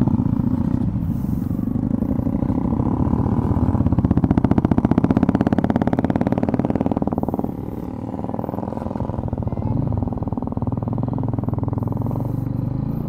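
Motorcycle engines running while riding slowly along the road. A fast, even engine pulse is loudest from about four seconds in and eases off at about seven and a half seconds.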